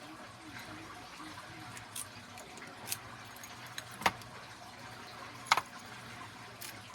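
Metal lockpicking tools and a deadbolt lock being handled: a few sharp metallic clicks and clinks, the loudest about four and five and a half seconds in, over a faint steady hum.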